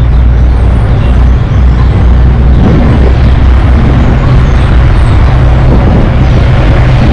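Road traffic: a loud, steady low rumble of vehicle engines.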